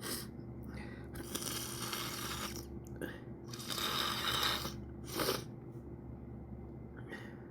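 A person sniffling and breathing noisily through the nose between sneezes: about five sniffs and breaths, two of them long drawn inhalations of about a second each.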